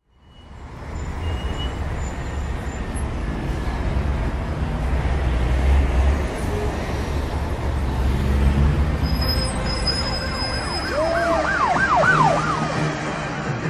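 Siren-like wailing over a low, steady rumble that fades in at the start, with a quick run of short rising-and-falling yelps about eleven seconds in.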